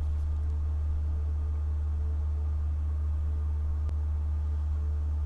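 A steady low hum, unchanging in pitch and level, with one faint click about four seconds in.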